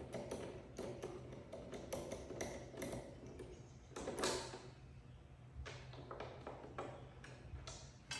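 Scattered light clicks and taps of hand work on a motorcycle's lower fairing as it is unscrewed and pulled off, with a steady low hum underneath. A couple of sharper knocks stand out, about four seconds in and near the end.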